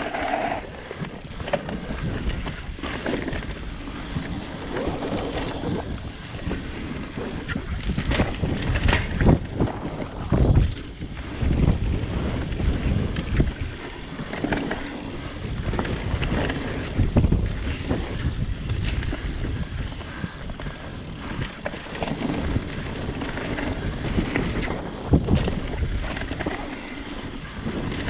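Mountain bike descending a dirt trail: wind buffeting the microphone over tyres rumbling on the ground, with the bike rattling and jolting irregularly over bumps.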